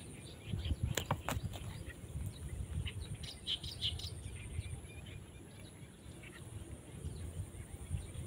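A few short bird chirps in the middle over an uneven low rumble, with two sharp clicks about a second in and a faint steady high whine that breaks off and returns.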